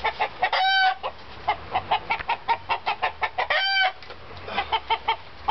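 Roosters clucking rapidly as they are being caught, with two drawn-out squawks, about half a second and three and a half seconds in.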